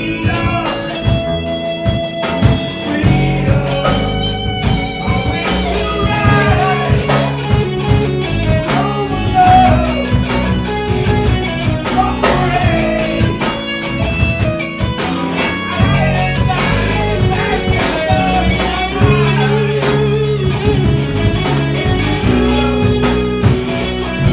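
A live rock band playing an instrumental passage: a lead electric guitar playing bending notes over bass, drums and cymbals.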